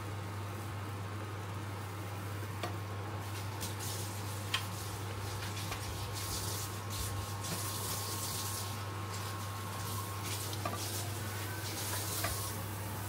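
Waffle batter sizzling as it is poured onto the hot plates of a Tefal OptiGrill Elite waffle grill, a hiss that swells and fades in patches over a steady low hum, with a few light clicks.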